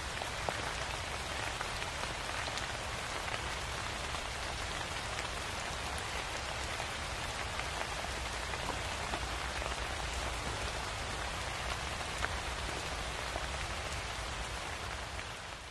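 Steady rain falling: an even hiss with scattered drop ticks, fading out at the very end.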